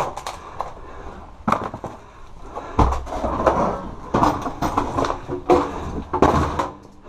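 Clutter being shifted by hand: a flat panel and boxes bumped and dragged about, several sharp knocks with scraping and rustling between them.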